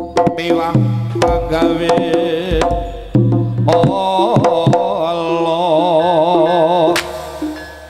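Live Javanese gamelan accompaniment for a rampokan dance: hand-drum strokes under a pitched melody, with a singer's wavering line from about halfway through. A single sharp crack near the end.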